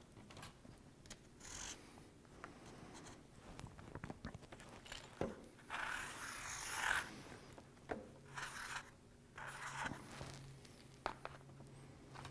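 Quiet scraping strokes of a Sharpie marker drawing on cardboard while tracing around small electrical parts, the longest stroke about six seconds in, with a few light knocks as the parts are set down and shifted.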